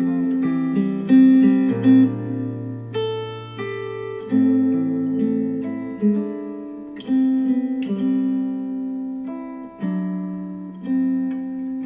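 Acoustic guitar music, plucked chords changing every second or two, played back through KEF LS50 Meta bookshelf speakers driven by a NAD C 338 integrated amplifier.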